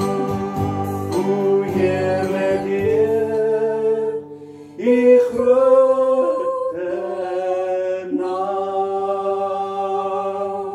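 Worship music: singing over sustained instrumental chords. The low bass drops out about three and a half seconds in, and after a brief dip about four seconds in the music goes on with long held notes.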